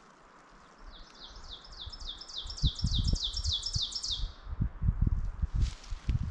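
A songbird sings a trill of quick downslurred high notes, about five a second, for roughly three and a half seconds. Under it, from about two and a half seconds in, irregular low rumbling thumps on the microphone are the loudest sound.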